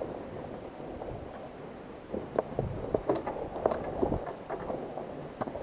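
Scattered sharp pops of airsoft gunfire over a low rumble of wind and movement on the microphone.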